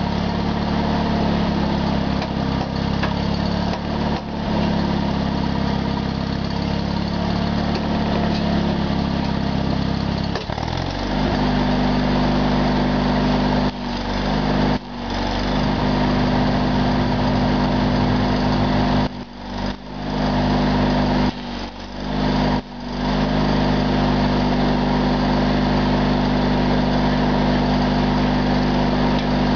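Small engine, started cold to power the welder, running steadily; its note changes abruptly about ten seconds in and holds at the new pitch. Over it, the sputter and hiss of a stick-welding arc as a steel bracket is welded, with a few short breaks.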